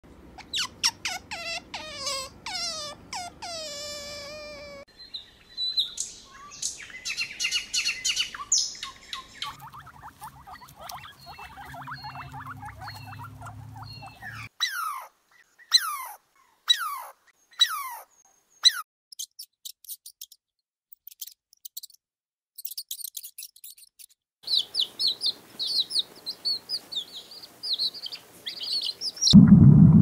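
A string of different animal and bird calls cut together, changing abruptly every few seconds: high calls that fall in pitch, twittering, quick falling chirps and a busy chirping chorus. A loud low rumble comes in just before the end.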